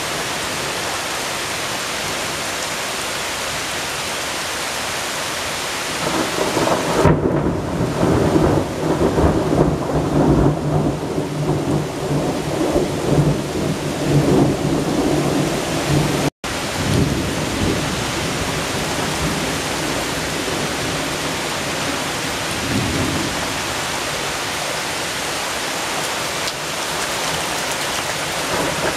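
Heavy rain hissing steadily during a strong thunderstorm, with a long rolling peal of thunder rumbling in about six seconds in and lasting some ten seconds. The sound drops out for an instant about two-thirds of the way through, then the steady rain carries on.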